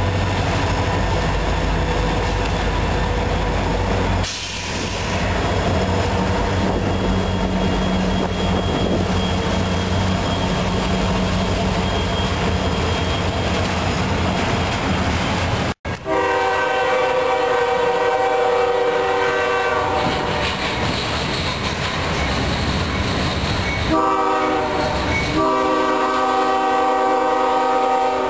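CSX SD40-2 and SD60 diesel-electric locomotives pass close, with the engines running as a steady low rumble and the wheels clattering on the rails. About halfway through, a CSX GE diesel locomotive's air horn sounds a long chord. It breaks off briefly near the end and then sounds again.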